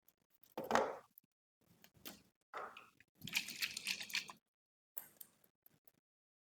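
Hands rubbing and scratching over hair and scalp in a head massage, a handful of short irregular strokes with one longer rub of about a second near the middle.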